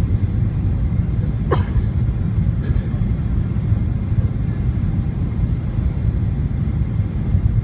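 Cabin noise in a Boeing 737-900ER on final approach: a steady low rumble from its CFM56 turbofan engines and the airflow. A brief sharp click comes about one and a half seconds in, and a fainter one a second later.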